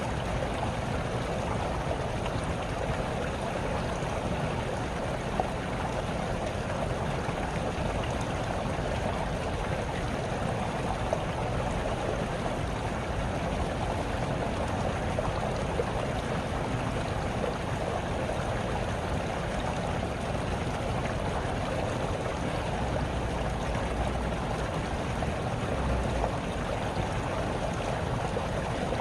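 Small stream babbling and trickling steadily over stones, a continuous water noise with faint splashes and gurgles.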